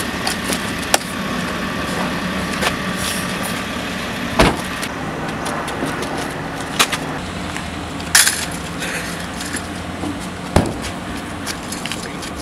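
A car engine idles steadily under several sharp knocks and clicks.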